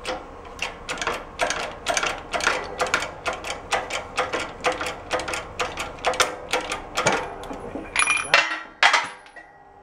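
Hydraulic shop press being pumped, with a steady run of sharp clicks about two or three a second as the ram pushes a gear shaft through a bearing held in a bearing separator. Near the end there are one or two loud cracks as the bearing breaks free of the shaft.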